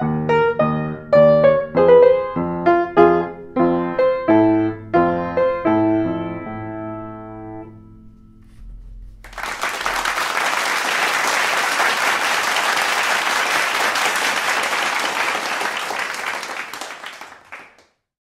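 Baldwin upright piano playing a phrase of notes over bass notes, ending on a chord that rings and fades away. After a brief pause, applause follows for about eight seconds and then cuts off abruptly.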